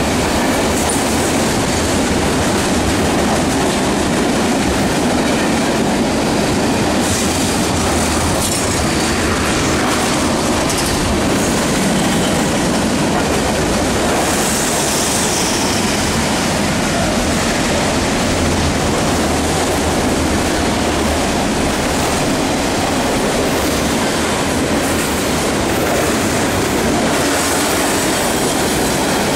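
A long freight train rolling past at steady speed: the steel wheels of hopper, tank and covered hopper cars running on the rails, with clickety-clack over the rail joints and a high wheel squeal now and then.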